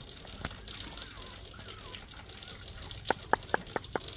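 A hen clucking: five short, sharp clucks in quick succession about three seconds in.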